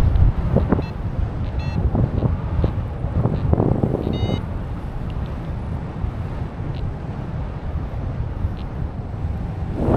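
Wind buffeting the microphone in flight under a paraglider, with a few short high beeps in the first half from the flight variometer.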